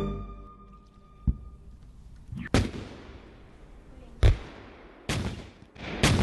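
Scattered gunfire: about five sharp, irregularly spaced shots, each trailing off in an echo, the loudest about four seconds in.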